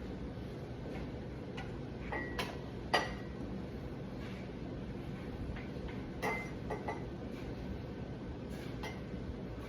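Scattered light clinks and taps of a ladle against a pot and ceramic soup cups as French onion soup is dished up, a few with a short ring, the loudest about three seconds in, over a steady background hum.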